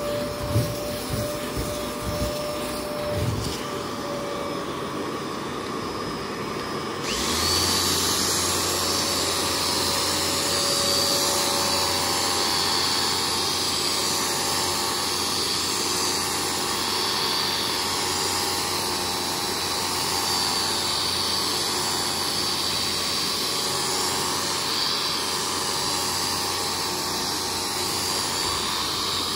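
A carpet-cleaning vacuum motor switches on suddenly about seven seconds in and runs steadily with a low hum and a high rushing whine. Before it, a quieter motor runs with a few knocks.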